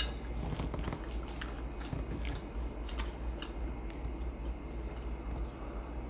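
Close-miked chewing and mouth smacking while eating a toast sandwich: irregular small wet clicks, over a steady low hum.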